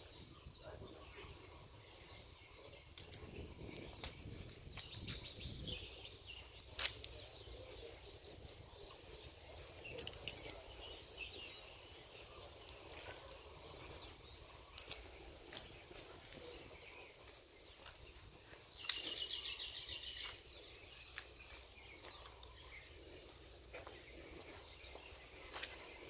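Birds chirping and calling in scattered short high notes, with a rapid trill partway through, over faint steady background noise. A few sharp clicks stand out now and then.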